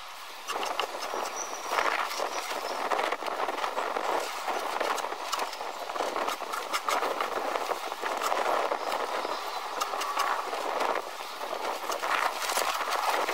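A scraper rasping down a raw, unbucked deer hide stretched over a wooden graining beam, the stroke after stroke sped up eight times so that they run together into a rapid, uneven scraping.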